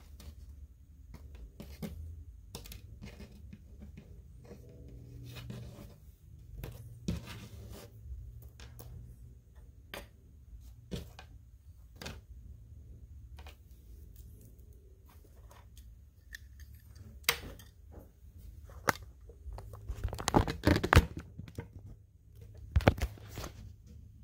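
Small plastic toy accessories being handled and set down on a wooden tabletop: scattered light clicks and taps with some rustling of the cloth tent, and a burst of louder clatter near the end.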